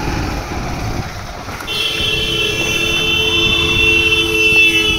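Road traffic rumble, then a vehicle horn held in one long steady blast of about three seconds, starting near two seconds in.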